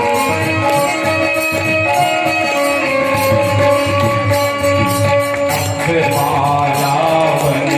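Aarti devotional music: a harmonium sounding long held notes over a steady percussion beat, with a wavering voice line coming in near the end.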